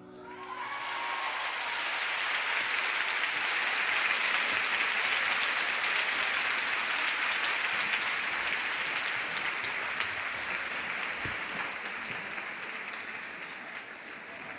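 Audience applauding, building up over the first couple of seconds and slowly dying away toward the end.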